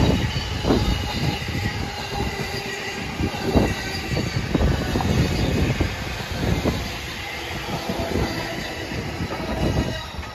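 E231-1000 series electric train running past at reduced speed. Its wheels give the resonant hum of rails freshly ground by a Speno rail grinder, with steady high tones over the rumble and irregular knocks from the wheels. The sound drops away near the end as the last car passes.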